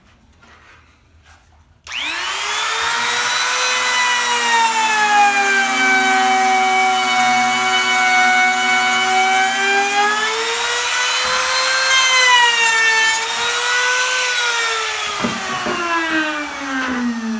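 Compact trim router switched on about two seconds in, its whine rising quickly to speed, then cutting a groove across a wooden leg, the pitch sagging and recovering as the bit takes the load. Near the end it is switched off and the whine falls steadily as the motor spins down.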